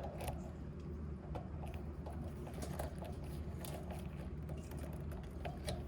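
Scattered light clicks and scrapes of hand tools working a wire into the lug of an air-conditioner contactor, over a steady low hum.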